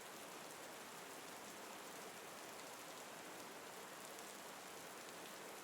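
Steady, faint rain falling, an even hiss of raindrops.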